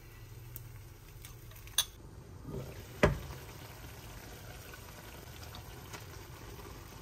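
Food cooking on the stove with a steady low bubbling hiss. There is a sharp clink about two seconds in and a louder knock a second later, likely utensils or cookware.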